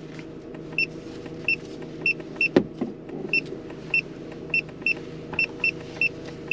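Handheld Bosscomm iFix435 scan tool beeping with each button press as its menus are scrolled: about a dozen short, high beeps, irregularly spaced roughly half a second apart, over a steady low hum.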